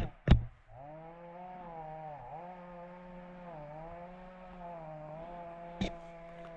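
A small engine running steadily, its pitch sagging briefly twice, with a short sharp click near the end.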